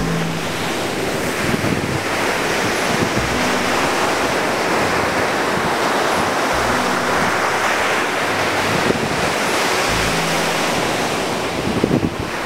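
Ocean surf: waves breaking and washing up the shore, a steady rushing of water.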